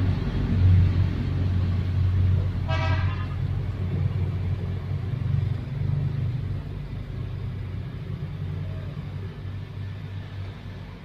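A motor vehicle's engine rumbling steadily, slowly fading away, with one short high-pitched toot about three seconds in.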